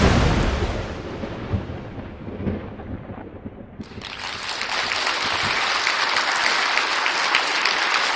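A heavy boom at the start that rolls and fades over about three seconds. About four seconds in, a crowd suddenly breaks into cheering and applause.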